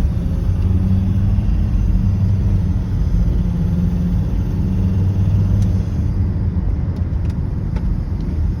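Volvo XC90 2.4D's five-cylinder turbodiesel running while the car gains speed: a steady low drone, with the whistle the owner hears on acceleration.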